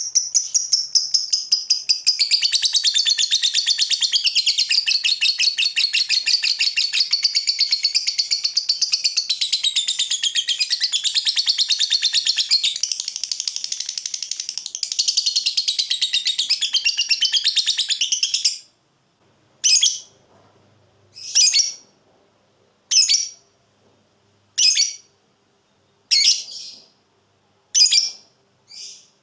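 Lovebird giving a long 'ngekek': a rapid, unbroken high-pitched chattering trill that lasts about eighteen seconds and then stops abruptly. It is followed by short single chirps, about one every second and a half. This long ngekek is the song that fanciers prize in a fighter lovebird.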